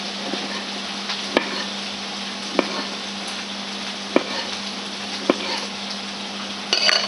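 Kitchen knife slicing a tomato on a wooden cutting board: the blade knocks the board in a few sharp, separate clicks about a second apart over a steady hiss, with a louder clatter near the end.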